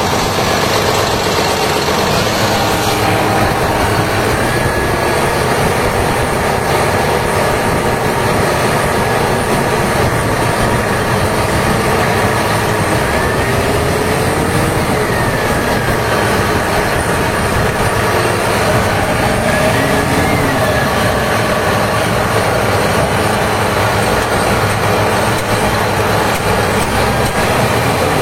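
Komatsu HB365 excavator's diesel engine running steadily, being tested after a repair to its noisy turbocharger. A faint whistle rises and falls a couple of times through the steady engine noise.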